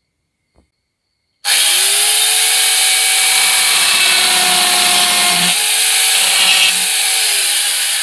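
Electric angle grinder fitted with a chainsaw adapter and 12-inch bar, switched on about a second and a half in, spinning up quickly and running at speed with its chain turning free, not cutting.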